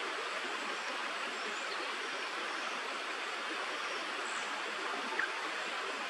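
Steady rush of flowing stream water, with a brief chirp about five seconds in.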